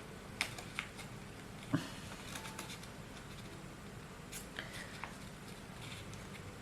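Hands handling paper die cuts and a planner cover: a few light clicks and taps of paper and plastic, with one soft knock about two seconds in.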